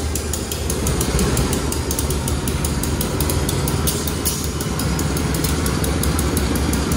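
Diesel-electric locomotive (a CC 201) running steadily with a deep, even rumble.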